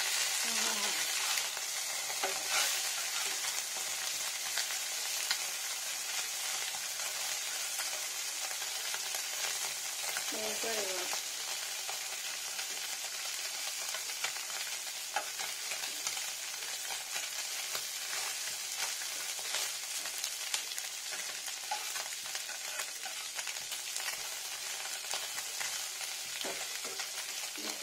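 Small whole fish sizzling steadily as they fry in hot oil in a frying pan, with a metal spatula scraping and tapping in the pan now and then as it turns them.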